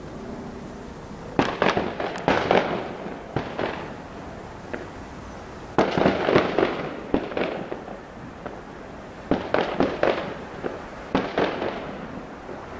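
Fireworks going off in several rapid clusters of sharp cracks and bangs, each followed by a short echo, with quieter gaps between the clusters.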